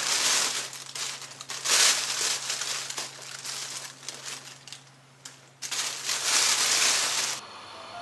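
Plastic packaging crinkling and rustling as it is handled, in three bursts: at the start, about two seconds in, and from about six seconds in. Under it runs a steady low hum that stops shortly before the end.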